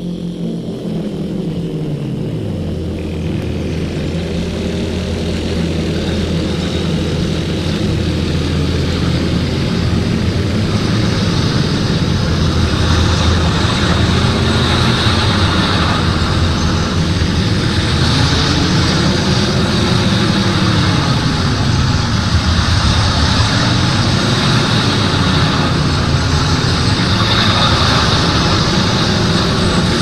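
Live electronic sound poetry: a voice sung into a microphone is looped and layered by laptop software into a dense drone of stacked tones that swell and sag in slow arcs every few seconds. A hissing layer comes in about ten seconds in, and the whole grows steadily louder.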